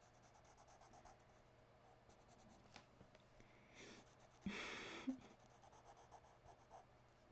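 Faint scratching of a fine-tip drawing pen on sketchbook paper as an outline is drawn, in short strokes. A brief louder rustle comes a little past halfway.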